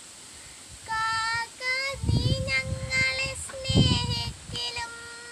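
A young girl singing a Malayalam poem unaccompanied in a slow, chant-like melody. Her phrases start about a second in and close on a long held note, with two low rumbles under the singing midway.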